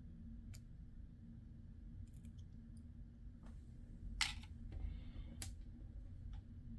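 Small clicks and taps of plastic model-kit parts being handled and pressed into place, with a louder click about four seconds in and another a little later, over a low steady room hum.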